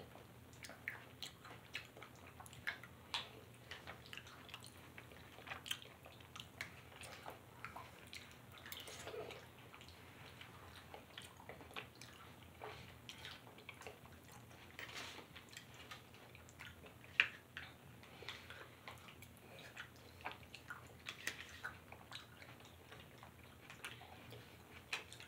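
Faint eating sounds: metal spoons clicking and scraping in small plastic dessert cups, with chewing and lip smacks, and a sharper click about seventeen seconds in.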